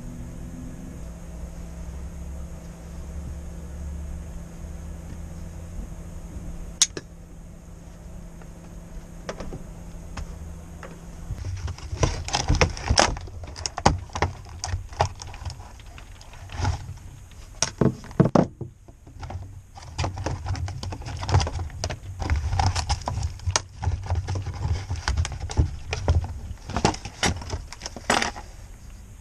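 A steady low hum with a single click. From about eleven seconds in come the crinkling of a plastic bag and many sharp clicks and rattles as a battery isolator is unpacked and handled on a table.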